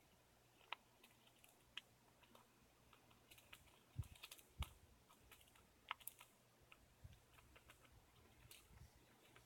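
Faint, scattered light clicks and taps against near silence, with two soft thumps about four seconds in.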